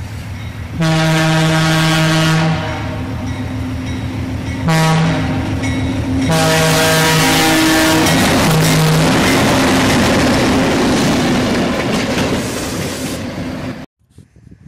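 Locomotive air horn sounding several blasts, a chord of steady notes, over the rumble and rail noise of a passing train. The noise continues after the horn stops and cuts off suddenly near the end.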